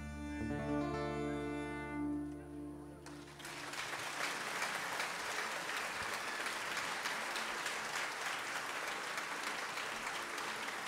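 A folk ensemble's last held chord, with bowed strings, dies away; about three and a half seconds in, audience applause breaks out and carries on steadily.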